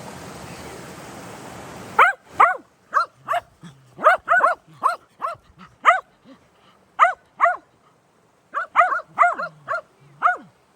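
A steady rushing hiss like running water stops abruptly about two seconds in. A dog then barks over and over, short high barks about two a second in runs with brief pauses.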